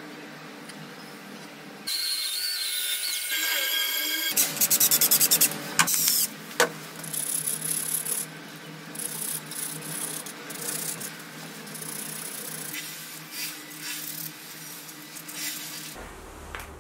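Hand work on a small wooden piece: rubbing and scraping strokes, with a quick run of rapid clicks about four to six seconds in and scattered sharp ticks after it.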